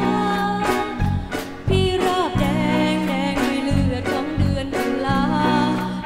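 A song: a singing voice over instrumental backing with a steady beat.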